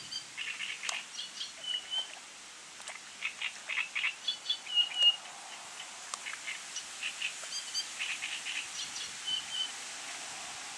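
Small birds calling and singing from the reeds: bursts of rapid chattering chirps mixed with short whistled notes, loudest about halfway through, over a faint steady rustle.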